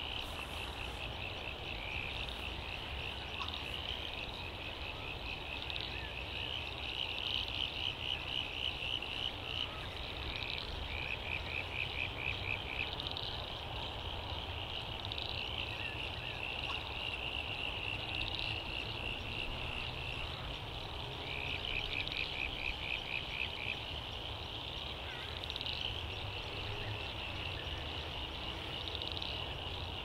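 Frog chorus: a steady high-pitched calling with repeated runs of rapid pulsed croaks, each run lasting a second or two, over a low steady rumble.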